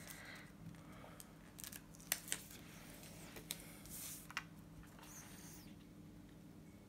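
Faint paper handling as a planner sticker is peeled and pressed onto a paper page: light crinkles and a scatter of small sharp ticks.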